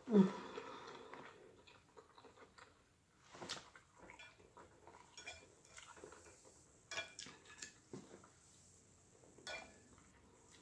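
Metal fork clinking and scraping against a ceramic plate in scattered taps while someone eats. Right at the start comes a short low vocal sound falling in pitch, the loudest moment.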